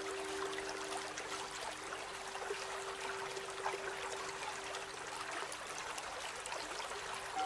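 A steady rushing, trickling sound like running water, under a soft held musical note that weakens after about five seconds.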